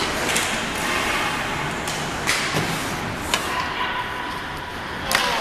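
Ice hockey play in an indoor arena: a series of sharp clacks of sticks and puck against sticks, pads or boards, the loudest one near the end, over a steady hiss of rink ambience.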